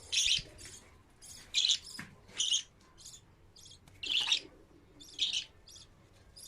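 Budgerigars chirping: short, high chirps, one every half second to a second, with a few gaps.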